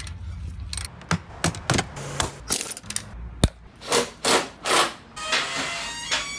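Irregular clatter of knocks, clicks and rubbing, as of tools and parts being handled, over a low hum in the first second.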